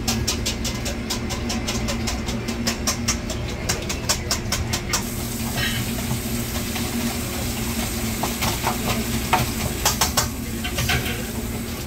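A wire whisk beating eggs in a stainless steel bowl: rapid clinks of metal on metal, about five a second, slowing and returning more loosely near the end. Under it runs the steady hum of kitchen ventilation.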